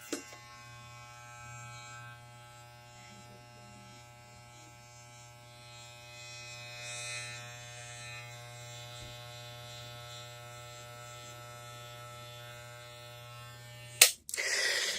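Wahl electric hair clippers with an electromagnetic vibrator motor buzzing steadily while cutting hair, a continuous buzz much like an old fire alarm horn. The buzz stops near the end with a sharp loud click, followed by a brief rustle.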